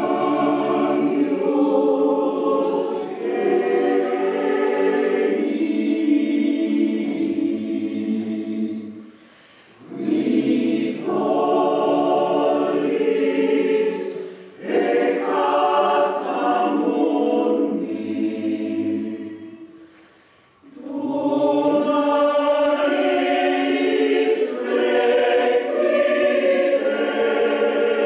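Mixed choir singing unaccompanied in four phrases, with short pauses between them; the last phrase dies away at the end.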